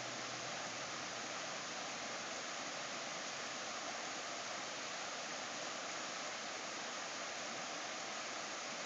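River rapids rushing steadily over rocks after a rain, an even, unbroken water noise.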